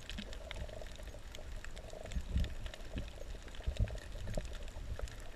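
Underwater sound picked up by a camera just below the surface over a shallow coral reef: water sloshing with low, irregular thumps and many faint, scattered clicks.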